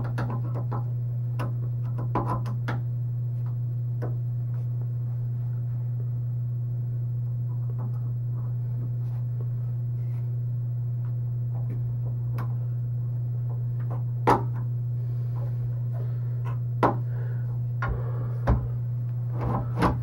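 Faint scattered clicks and knocks from hands turning a glass doorknob and its Dexter door latch, with a few sharper clicks about 14 to 20 seconds in, over a steady low hum.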